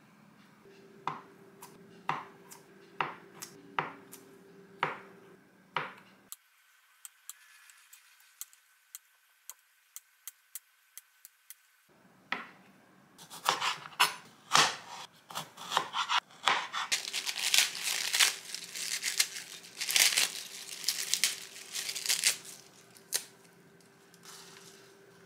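Kitchen food preparation: a chef's knife slicing a soft tofu sausage gives sharp, spaced knocks on a cutting board, and lettuce leaves being torn by hand give dense crackling and rustling through the middle and later part.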